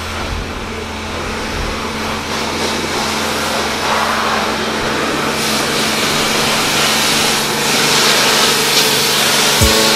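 Pressure washer running at a hand car wash: a steady motor hum under a hissing spray that grows louder from about halfway through.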